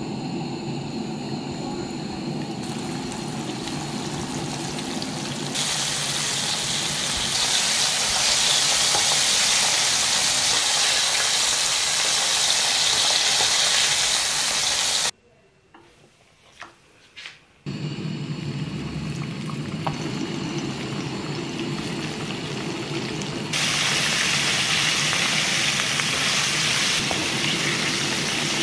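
Sweet potato slices deep-frying in oil at 165–175 °C, with a steady sizzling and bubbling. About halfway through it drops out to near silence for a couple of seconds, then resumes, louder over the last few seconds.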